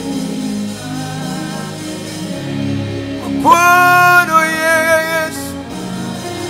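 Worship song: a male lead singer sings a loud, held note about three and a half seconds in, then a shorter phrase, over a quieter instrumental backing of sustained chords.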